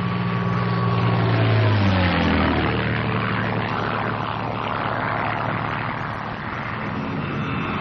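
P-51B Mustang's Merlin V-12 engine and propeller droning as the fighter goes into a dive. The drone drops in pitch about two seconds in and gives way to a loud rushing noise.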